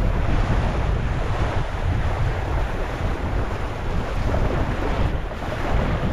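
Wind buffeting the bow-mounted camera's microphone over the steady rush and splash of water along a Sunfish sailboat's hull as it sails through chop.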